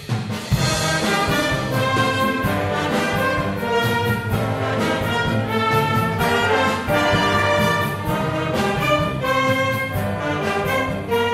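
Concert wind band playing a Cuban-style piece, with the brass section carrying the tune over the rest of the band.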